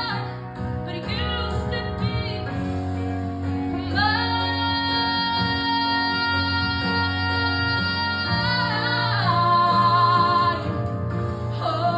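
A teenage girl singing solo through a microphone and PA, over a steady low instrumental backing. She holds one long note from about four seconds in until about eight and a half seconds, then sings a wavering note that is the loudest part, near ten seconds.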